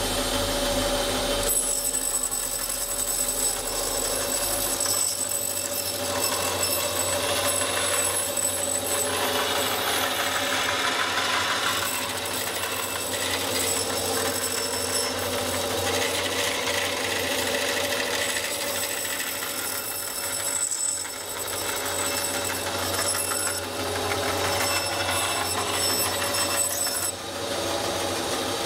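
Bandsaw running steadily, a motor hum with a high whine, as its blade cuts through 1.5-inch foil-faced foam insulation board; the cutting noise swells and dips as the board is fed through in several passes.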